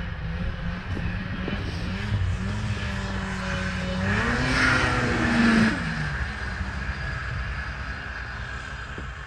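Snowmobile engine running as the sled is ridden, revving up about four seconds in and easing back down about two seconds later.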